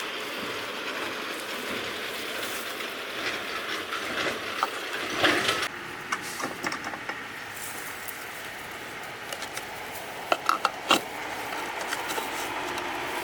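Steady mechanical noise with scattered clicks and knocks, a louder burst about five seconds in and three sharp knocks in quick succession near the ten-second mark.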